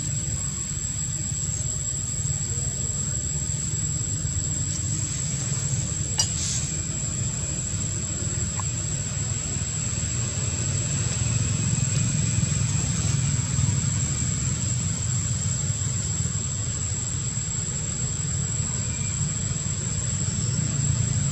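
Steady outdoor background: a continuous low rumble with a constant thin high-pitched whine over it, and a single sharp click about six seconds in.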